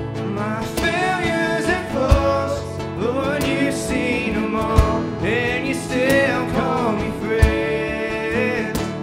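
Live worship band playing a slow song: sung vocals over strummed acoustic guitars and keyboard, with a deep cajón hit about every two and a half seconds.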